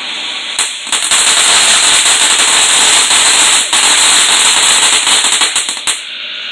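Fireworks going off: a sharp pop, then about five seconds of dense, rapid crackling that stops abruptly with a few last cracks.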